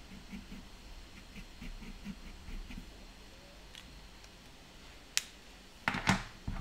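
Faint, rhythmic scratching of a fine-liner ink pen hatching strokes on toned paper, a few strokes a second, stopping about three seconds in. Near the end, a few sharp clicks.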